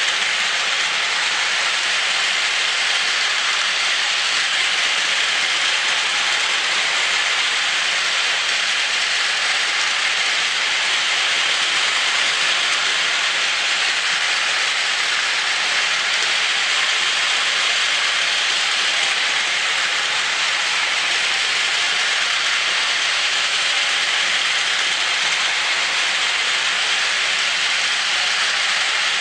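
Two battery-powered Plarail toy trains, a full-length E5 Hayabusa and E6 Komachi set, running together on plastic track. Their small motors, gears and wheels make one steady, unchanging noise.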